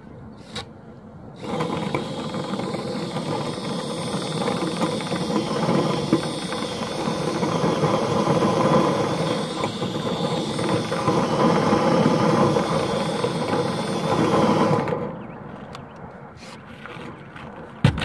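Power drill spinning a flexible rotary brush rod through a clogged dryer vent, the rod whipping in the vent cap as lint and debris are thrown out. The steady whirring starts about a second and a half in, runs for about thirteen seconds, then stops, and a single sharp knock follows near the end.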